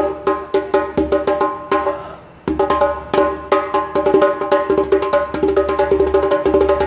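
Djembe with a chicken-skin head played by hand. A few separate strokes, a short pause about two seconds in, then a fast run of hand strokes, each ringing with a clear pitch.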